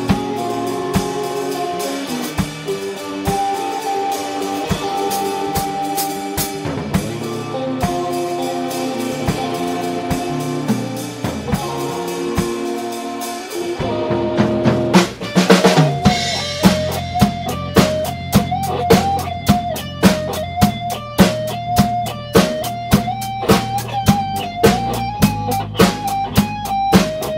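Instrumental rock trio playing live: electric guitar, electric bass and drum kit. About halfway through, a drum fill and a rising build lead into a steady beat of about two hits a second, with the electric guitar carrying a long held melody line with vibrato.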